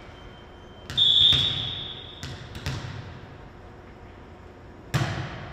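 Referee's whistle blown once, a single steady high tone lasting about a second, signalling the serve in a volleyball match. It is followed by a few light thuds of the volleyball bounced on the gym floor, and a sharp smack near the end as the ball is served.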